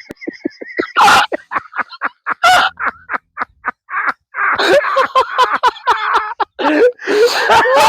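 Hard, breathless laughter: a quick run of short gasping bursts, about four a second, building about halfway through into louder, cackling laughter.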